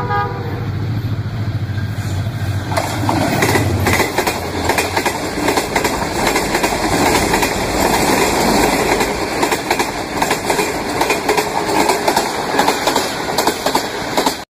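Diesel-hauled passenger train passing close by: a low engine drone from the locomotive for the first few seconds, then the coaches' wheels clattering and rumbling steadily over the rail joints.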